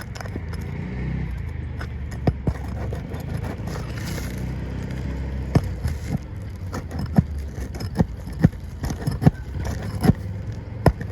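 A series of sharp, irregular metal knocks and scrapes from hand tools working nails loose in asphalt shingles, coming more often in the second half, over a steady low rumble.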